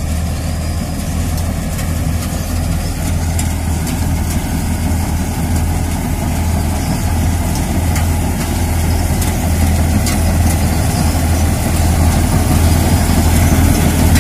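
Combine harvester's diesel engine running steadily while the machine cuts ripe rice: a deep, even hum with some mechanical noise that grows slowly louder as it comes closer.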